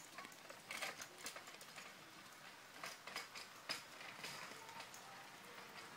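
Kick scooter ridden along a wet tarmac lane, its wheels and frame giving off faint, irregular clicks and rattles.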